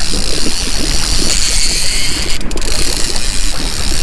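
A fishing reel being cranked with a mechanical clicking while a lake trout is played in. Over it, wind buffets the microphone and a boat's motor hums steadily.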